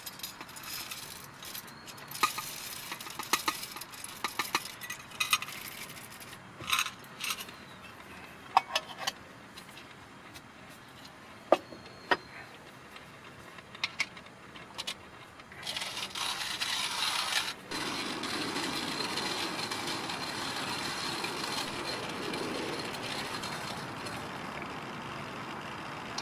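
Small clinks, rattles and scrapes of utensils and containers being handled. About two-thirds of the way in, a steady rushing noise starts suddenly and keeps going.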